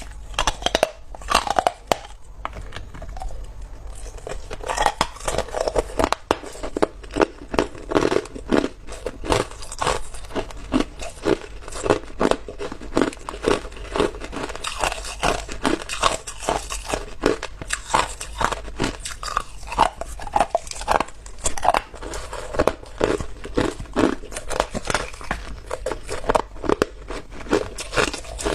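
Someone biting and chewing a chunk of hard clear ice: a dense run of crisp crunches and crackles, with a brief lull about two to four seconds in.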